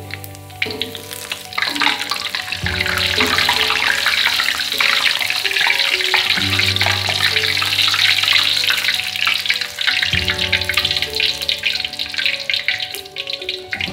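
Sliced garlic frying golden in hot oil in a wok: a dense sizzle that swells about two seconds in, as a perforated metal skimmer scoops the slices out. Background music plays throughout.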